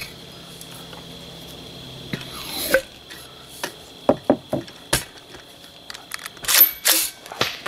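Handling noise from an X-Products Can Cannon golf-ball launcher being loaded and readied: clicks, rubbing and knocks as the golf ball goes into the adapter barrel and the launcher is picked up and brought to the shoulder. The scraping leading into a knock a little before 3 s is the quieter part, and the loudest knocks come near the end.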